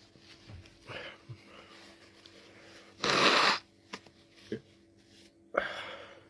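A person blowing his nose hard into a tissue, one loud blow lasting about half a second around three seconds in, followed near the end by a shorter, sharp breath through the nose. A runny nose is a common effect of eating Carolina Reaper chillies.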